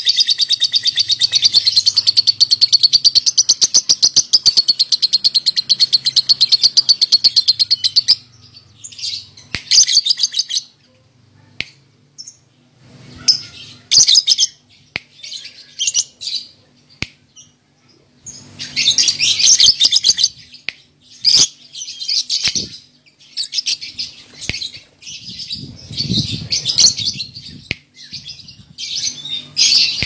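Male blue masked lovebird singing: a long, rapid, high chattering trill for about eight seconds that breaks off suddenly, followed by short bursts of chirps and chatter with gaps between them.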